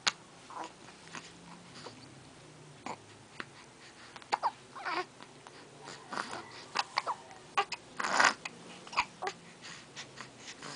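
A string of short whimpering cries mixed with sniffing and snuffling, with a louder breathy burst about eight seconds in.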